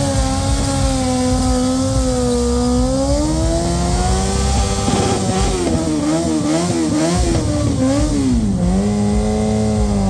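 Motorcycle engine held at high revs during a smoky burnout. Its pitch slides slowly up and down, wobbles quickly up and down for about three seconds past the middle, then settles steady.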